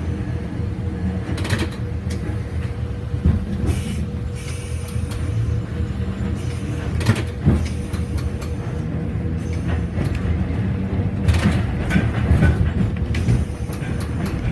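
Okayama Electric Tramway streetcar running along street track, heard from inside the car: a steady low running noise with a faint steady whine, broken by several sharp rattles and knocks from the car and track.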